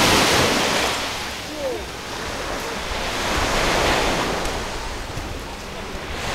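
Black Sea surf breaking and washing up a pebble beach, swelling and easing in waves, with wind buffeting the microphone.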